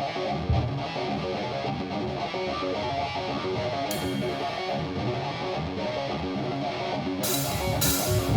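Electric guitar playing a picked intro riff, clean notes changing every fraction of a second. A cymbal comes in about four seconds in, and drum and cymbal hits build near the end.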